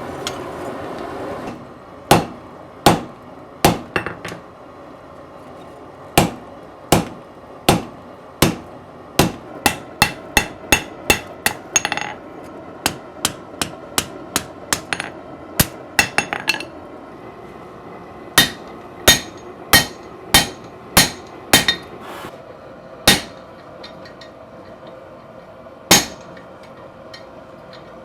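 Hammer forging a hot knife blade on an anvil: sharp metal strikes in irregular runs of one or two a second, broken by short pauses, with a few spaced blows near the end.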